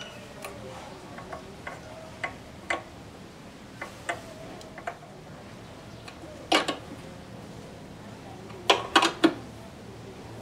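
Scattered metallic clicks and clinks from a socket wrench working the mounting bolt of a motorcycle voltage regulator. There is a louder pair of clicks partway through and a quick run of three sharp clicks near the end.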